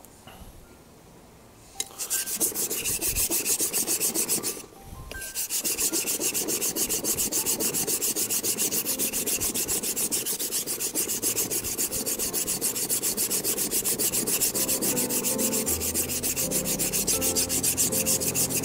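Steel santoku blade scraping back and forth on a wet, coarse whetstone, thinning the blade. It starts about two seconds in as quick, even strokes, about four a second, with one short break after the first few strokes.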